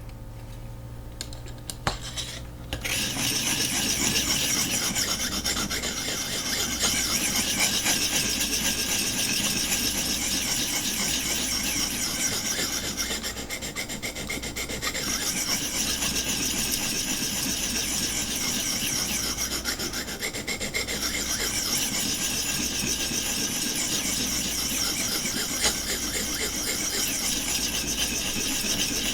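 Knife edge being drawn across a 400-grit abrasive on a Vipersharp guided sharpening system: a continuous rasping scrape of repeated sharpening strokes, starting about three seconds in after a few light clicks, raising a burr on the bevel.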